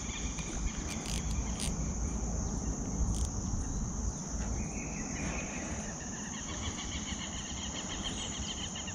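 Insects such as crickets chirring in a steady, high continuous chorus. About halfway through, a second, pulsing call joins in, all over a low rumble.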